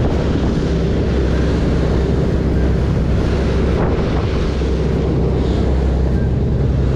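Fishing boat's engine running steadily under way, with the wake rushing alongside and wind buffeting the microphone.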